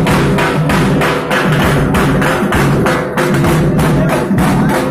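Loud rhythmic percussion beating a fast, even beat of about four to five strokes a second, over low sustained tones.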